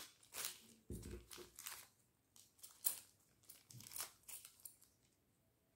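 Quiet crinkling and rustling of small clear plastic bags being handled and opened, with a dull bump about a second in; the rustling dies away near the end.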